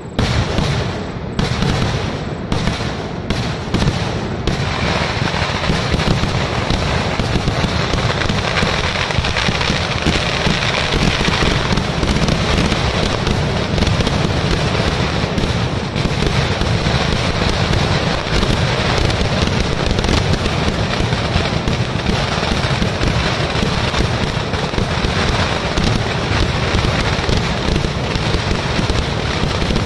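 Fireworks display: a few separate bangs in the first four seconds or so, then a dense, continuous barrage of firecracker and shell explosions.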